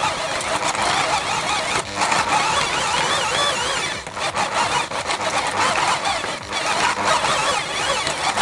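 Electric drill turning a metal hand meat grinder at slow speed, grinding garlic cloves: the drill motor whines and the grinder grinds continuously, with brief dips about two and four seconds in.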